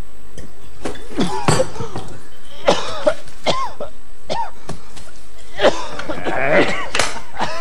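A man coughing in several short fits, spread over a few seconds, after gulping liquor straight from a bottle.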